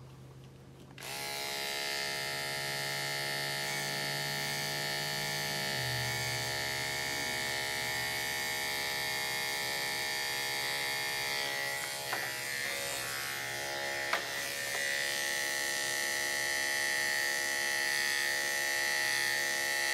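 Andis AGC2 two-speed dog clipper with a #10 blade switched on about a second in and running with a steady buzz as it cuts a severe mat out of a dog's ear. Its tone shifts slightly about six seconds in, and two brief clicks come later.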